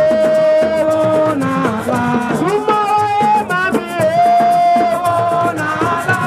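Music: a long held, wavering melody line over a fast, steady shaker rhythm.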